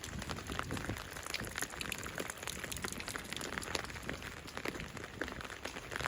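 Winter rain falling: a steady hiss with many separate drops hitting close by.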